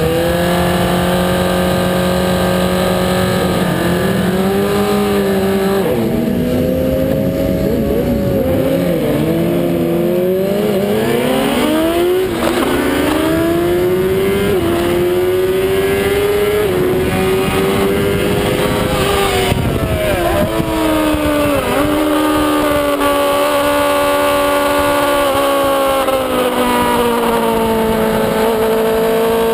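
Suzuki GSX-R inline-four sport bike engine at race revs, heard from on board with wind rush, its pitch stepping with gear changes and throttle. It rises steadily through the middle, drops suddenly about two-thirds of the way through as the bike slows, then holds fairly steady.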